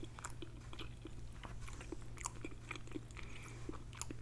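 Close-miked chewing of a mouthful of food: irregular wet smacks and small clicks of the mouth, over a low steady hum.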